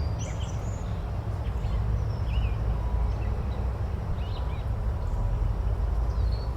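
Forest ambience: small birds giving brief, scattered chirps over a steady low rumble.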